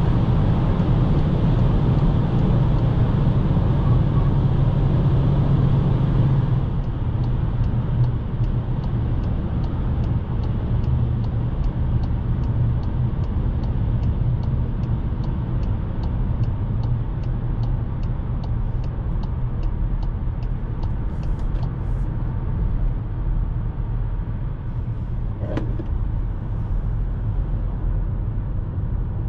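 Road and engine noise inside the cabin of a Cupra Formentor 1.5 TSI at motorway speed, a steady low rumble that drops in level about six seconds in. A turn signal then ticks evenly, about two and a half times a second, for roughly thirteen seconds.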